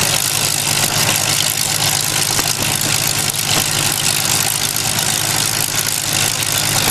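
Hawker Hurricane's Rolls-Royce Merlin V12 engine idling steadily on the ground, its propeller turning.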